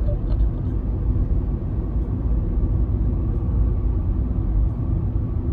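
Steady low rumble of a road vehicle driving on a paved road, heard from inside the cabin: engine and tyre noise with no change in pace.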